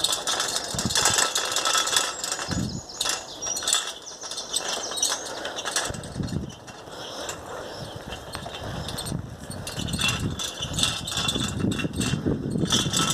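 A wheel rattling and squeaking as it rolls, with irregular clattering clicks and a high squeal throughout.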